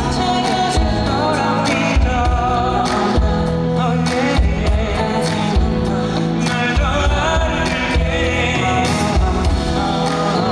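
Live band music with singing, from a pop ballad performed in concert.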